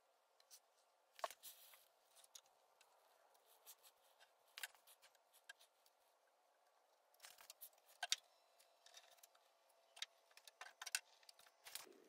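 Faint scattered clicks and short sputtering spurts from a can of expanding spray foam being dispensed through its straw, over a quiet background.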